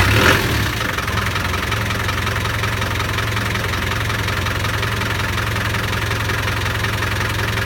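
Land Rover Defender 90 engine idling steadily with a fast, even ticking over the low hum. There is a brief louder burst just after the start, after which it settles to a slightly lower, steady idle.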